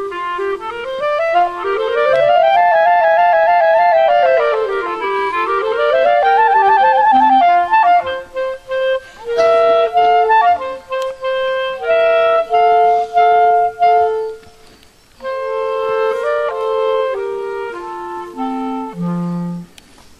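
Instrumental music led by a reedy woodwind melody. It opens with fast runs sweeping up and down, then moves to separate held notes, sometimes two at once. There is a brief pause about three-quarters of the way through, and it drops to a few low notes near the end.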